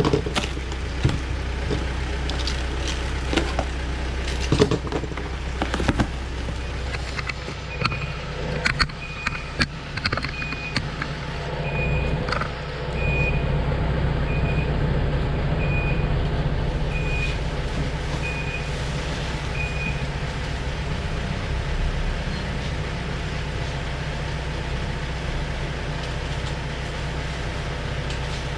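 Package being opened and handled, with scattered knocks, clicks and rustles, over the steady low drone of an engine running nearby. About eight seconds in, a series of about ten short, high beeps starts, spaced a little over a second apart, and stops near twenty seconds.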